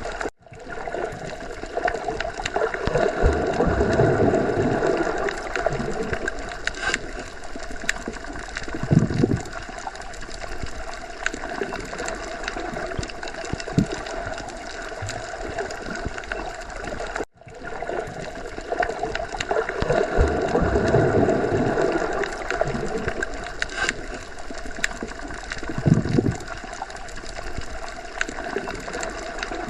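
Underwater sea ambience: muffled water swirling and gurgling in slow swells, with occasional low thuds. The same stretch of recording repeats, cutting out for an instant where the loop restarts, once near the start and again past halfway.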